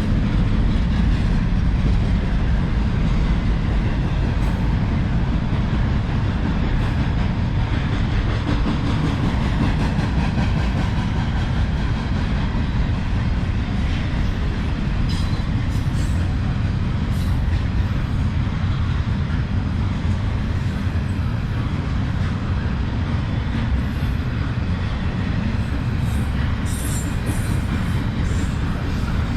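Freight train cars rolling past on the rails: a steady low rumble with scattered clicks from the wheels and couplers.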